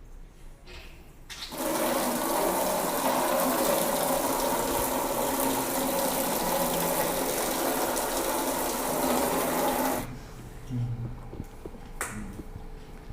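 Water rushing steadily for about eight and a half seconds, starting and stopping abruptly.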